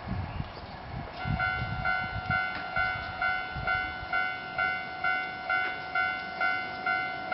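Japanese railway level-crossing warning bell starts about a second in and rings in an even, repeating electronic ding, a little over twice a second: the signal that a train is approaching. A few low thumps come in the first seconds.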